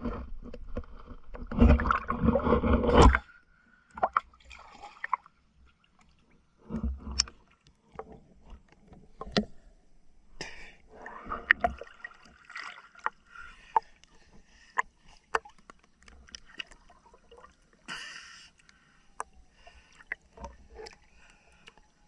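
Underwater: a diver's scuba regulator exhausting bubbles in loud gurgling bursts every few seconds. Between the bursts come scattered sharp clicks and short scrapes.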